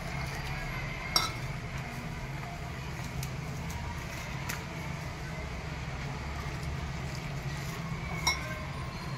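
Wire whisk stirring thick chickpea-flour batter in a stainless steel bowl as water is worked in, with light scraping and small clinks. Two sharper clinks of metal on the bowl come about a second in and near the end, over a steady low hum.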